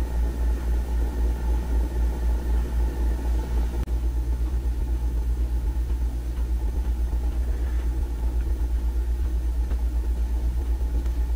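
A low, steady rumble that pulses evenly about five times a second.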